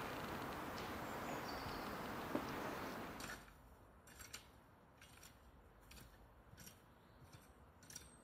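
Quiet outdoor background noise with a short bird chirp, then, about three seconds in, it drops away to faint, short scratching strokes of a rake dragged through loose soil, repeating every half second or so.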